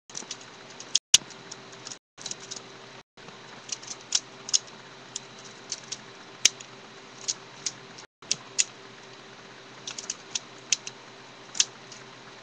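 Plastic clicking and light clatter of a Lego-brick butterfly knife being flipped open and shut in the hand. The handles knock together in irregular sharp clicks, over a steady faint hum.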